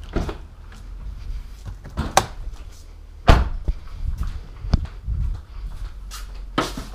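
Footsteps and handling in a garage with a few sharp knocks and clicks, the loudest about a third of the way in.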